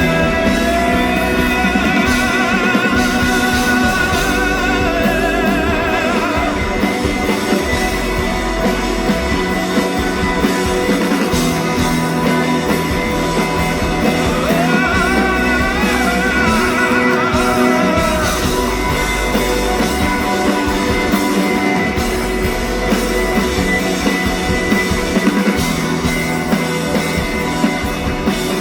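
Live band playing a passage without lyrics, guitar to the fore. A melody line with wide vibrato wavers over the band in the first few seconds and again about halfway through.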